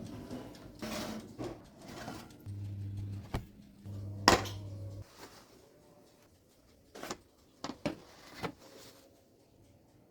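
Kitchen handling sounds: a string of sharp clicks and knocks, the loudest a bit past four seconds in, with a short low electric hum twice in the first half.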